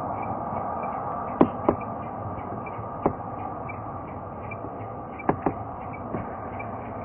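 CFM LEAP-1A engines of an Airbus A320neo at taxi power, a steady rushing drone heard from beside the taxiway, with a few short sharp clicks over it, two of them in quick pairs.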